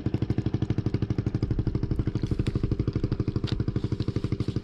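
A motorized outrigger boat's small engine running steadily, an even putt-putt of about a dozen beats a second, with a few light ticks in the middle.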